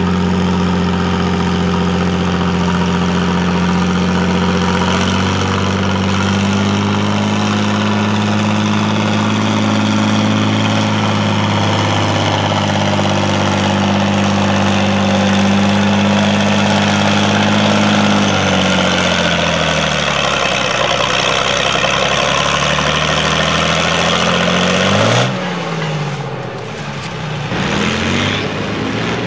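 International Harvester 766 six-cylinder diesel tractor engine running hard under load while pulling the sled, its note holding steady with small steps up and down, then sagging and dropping away about two-thirds of the way through. Near the end another tractor engine revs up and down in short blips.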